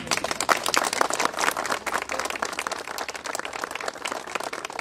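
Crowd of guests applauding the bride's "yes" in a civil marriage ceremony: many hands clapping, starting suddenly and thinning out toward the end.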